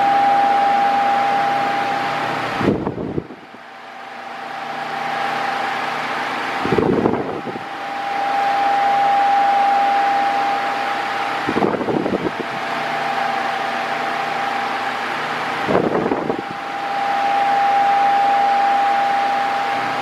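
Mondial Maxi Power 40 cm 140 W table fan running at top speed while oscillating: a rush of air with a steady motor whine above it. The owner calls it very noisy, with the motor plainly heard over the wind. The sound swells and fades as the head sweeps toward and away, about every eight seconds, and a short rumble of air on the microphone comes four times as the airflow passes.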